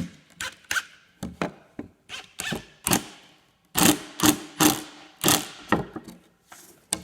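Irregular sharp clacks and knocks, about a dozen of them, some with a short ring after, from the wooden target board, 2x4 block and tools being handled and set in place.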